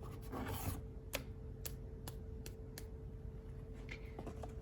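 A brief rustle, then a run of five light, sharp taps about half a second apart, made while spattering flecks of acrylic paint onto card stock.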